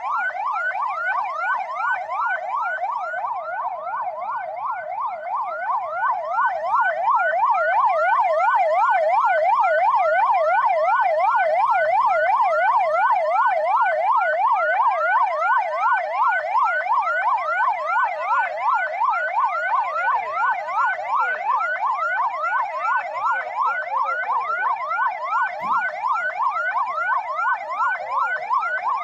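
Ambulance's electronic siren in a fast yelp, its pitch sweeping up and down about three times a second. It gets louder about a quarter of the way in as the ambulance draws near.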